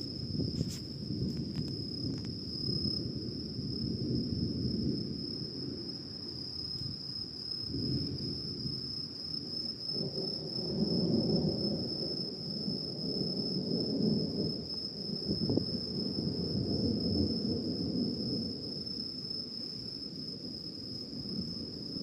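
Crickets trilling in one steady, unbroken high note, over a low, uneven rumble that swells and fades. A couple of brief clicks come near the start.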